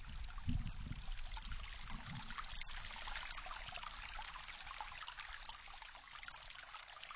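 Water trickling and running in a steady stream, a hiss of fine splashes that slowly grows quieter.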